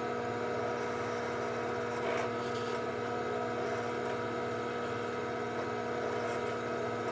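Benchtop drill press motor running steadily with a constant hum while it drills holes in a thin leather finger tab. There is a sharp click near the end.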